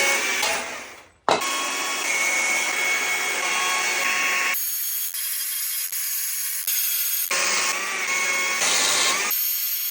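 Power carving tools cutting into wood, in several short clips cut together. Some stretches have a steady whine. In two stretches only a high, hissing grind is heard.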